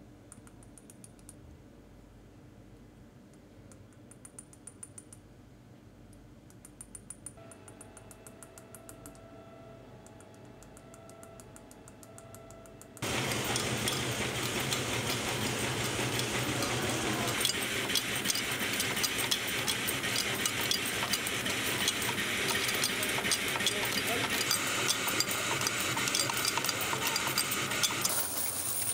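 Quiet workshop with a few short runs of fast high ticking, then, about halfway through, a coin press starts suddenly. It makes a loud, dense metallic clatter of rapid strikes as 50p coins are minted, and this goes on steadily to the end.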